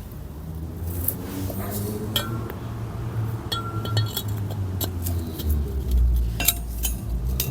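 Light metallic clinks and taps, a few of them ringing briefly, over a low steady hum.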